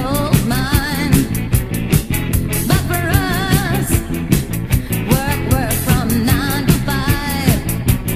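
Recorded music: a song with a sung melody over a steady beat.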